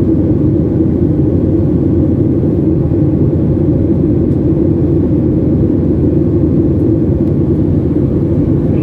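Steady low rumble of cabin noise inside a Boeing 737-800 in flight.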